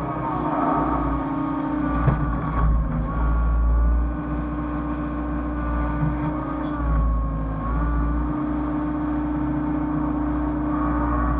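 Hyundai excavator's diesel engine running while it works, its pitch dipping and recovering as the hydraulics take load, with a sharp knock about two seconds in.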